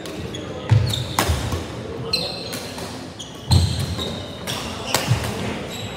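Badminton doubles rally: sharp racket-on-shuttlecock hits, with short shoe squeaks on the court floor. The loudest sounds are two heavy thumps of footfalls, one near the start and one about halfway through.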